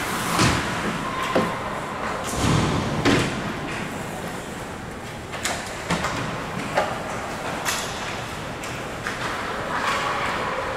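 Ice hockey play: skates scraping on the ice and sticks clacking, with several sharp knocks and thuds of players and puck against the rink boards, the loudest in the first three seconds.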